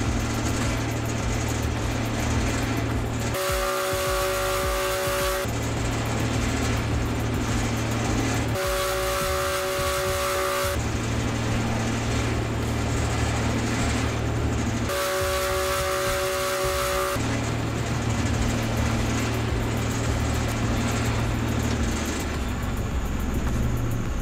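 Okada Seiko W280 Speed Mill's motor and bladed rotor running steadily at about 2,280 rpm, a constant low hum. Three times it gives way to a steady pitched tone lasting about two seconds.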